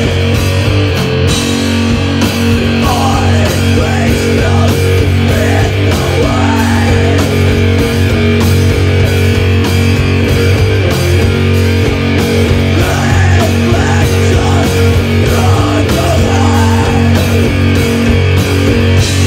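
Heavy metal band playing live: distorted guitars and bass holding long low chords over steady drum and cymbal hits, with vocals in stretches.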